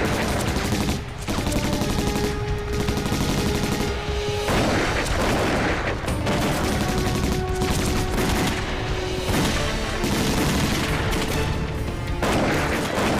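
Film battle soundtrack: dense, continuous volleys of rifle and machine-gun fire over background music with long held notes.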